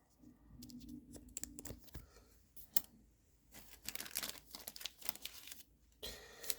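Plastic card sleeves crinkling and rustling as trading cards are slid into them, with scattered light clicks that grow busier in the second half.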